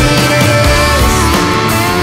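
Background rock music with a guitar lead.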